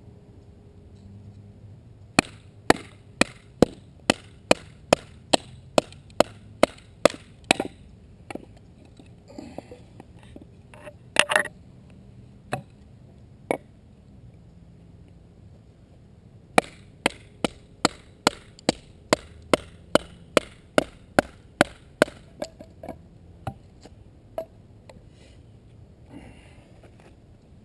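A bushcraft knife being driven into wood: two long runs of sharp, evenly spaced wooden knocks, about two to three a second. Between the runs come a few scattered, irregular knocks.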